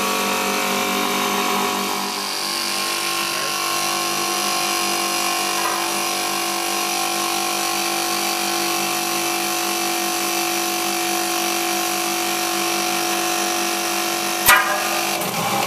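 Refrigeration condensing unit's compressor running with a steady mechanical hum made of several steady tones, while its condenser fan is not turning. A single sharp click sounds near the end.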